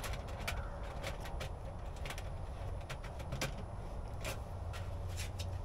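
Irregular sharp metallic clicks and taps, about eight of them, as a tool and fittings knock against the metal drum of a chicken plucker during assembly, over a low steady rumble.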